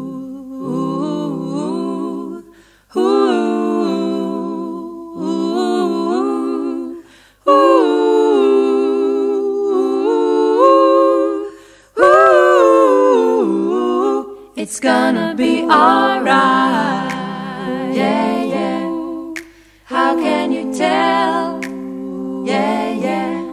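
Background music of a cappella singing: wordless voices humming and singing held notes with vibrato in phrases a few seconds long. Fuller layered voices come in a little past halfway.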